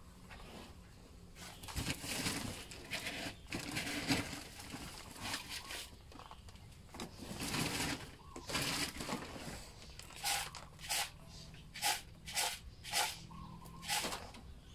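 Hands mixing a damp mash of duckweed and rice bran in a basin: rustling, crumbly scrunches as handfuls are lifted and dropped, turning into quicker, sharper strokes at about two a second near the end.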